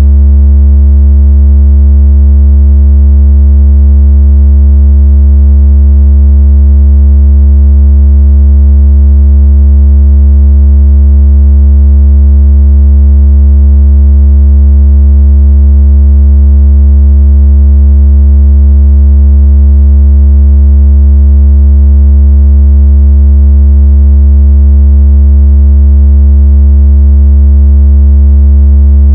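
A loud, continuous, very deep electronic tone, held perfectly steady with faint higher overtones: a speaker water-ejection and vibration test tone.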